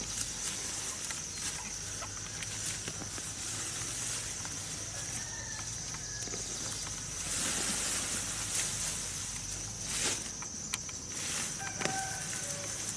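Peanut plants being pulled up and handled by hand: leaves rustling and stems snapping, loudest for a stretch about halfway through. A steady high insect drone runs underneath, with a few short chirps.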